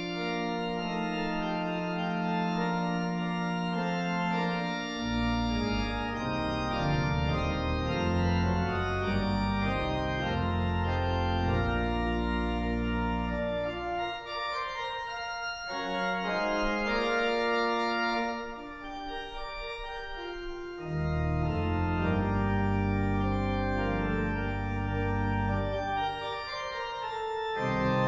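Organ playing slow, sustained chords, with a low bass line that drops out and comes back several times.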